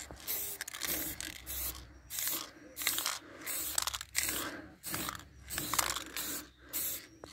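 Aerosol spray-paint can hissing in short, repeated bursts, a bit under two a second, as paint is sprayed onto a car's fender.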